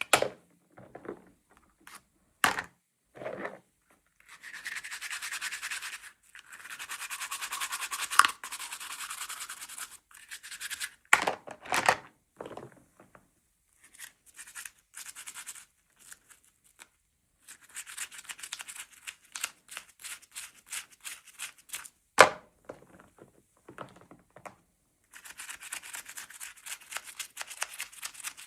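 Toy packaging being handled and opened by hand: stretches of fast scratching and rubbing broken by pauses, with a few sharp clicks and knocks, the loudest about a third of the way in and again near three-quarters through.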